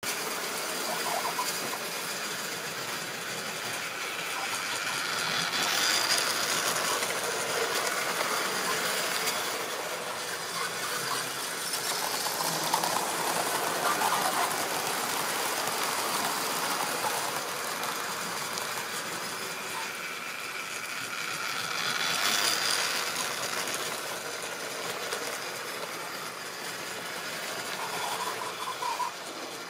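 Tri-ang model train running on the layout's track: the locomotive's motor and the wheels on the rails make a steady whirring rattle. It swells louder several times as the train passes close by.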